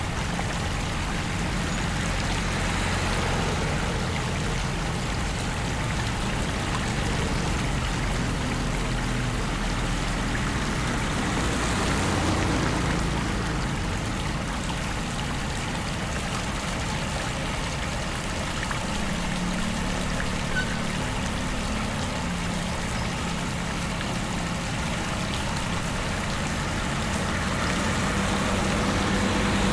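Steady rushing of flowing floodwater, with a low engine-like hum underneath.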